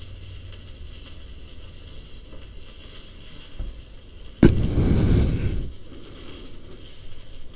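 Electric welding arc crackling on the motorbike's frame: a sudden loud burst of crackle about four and a half seconds in, lasting just over a second, against a faint background.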